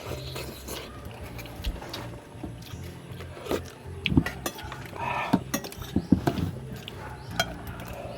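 Eating at a plate of grilled fish: scattered short clicks and knocks of utensils or fingers against dishes, busiest in the second half, over a low steady hum.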